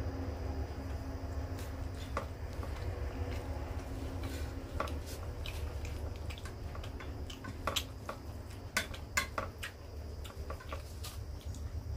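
Fingers mixing rice on a stainless steel plate: scattered light clicks and taps of fingertips against the metal, more frequent after a few seconds, with the sharpest ones about eight and nine seconds in, over a steady low hum.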